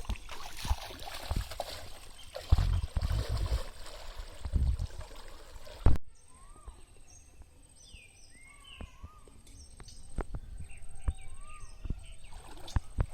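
Water splashing and sloshing with several low thumps, typical of wading and handling a net. After a sudden cut about six seconds in, small birds chirp over a thin steady high-pitched tone and scattered clicks.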